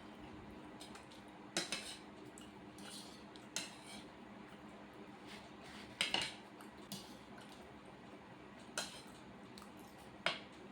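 Cutlery clinking and scraping against a plate, in about seven sharp, irregular strikes, the loudest about six seconds in and near the end.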